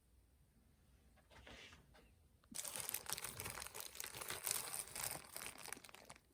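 Thin sheet of fishing lead crinkling and crackling as it is handled and cut, a dense crackle starting about two and a half seconds in and lasting over three seconds.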